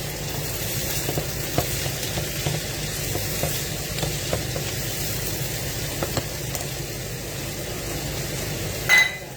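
Meat and carrots frying in a pan: a steady sizzle with small clicks from stirring. About nine seconds in comes one sharp clink with a short ring.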